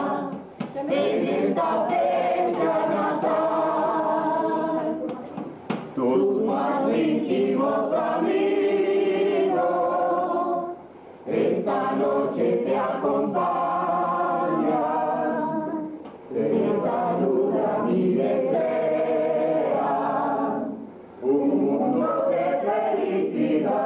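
A group of men and women singing a song together, with no instruments standing out. The song comes in phrases of about five seconds, each followed by a brief pause.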